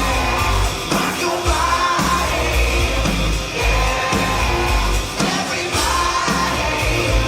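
Loud music with singing and yelled vocals over a heavy, steady beat.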